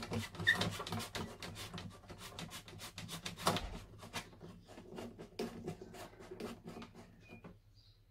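Grey plastic pipe being worked loose from an MSPA hot tub pump unit by hand: a quick run of plastic rubbing, scraping and clicking that stops near the end.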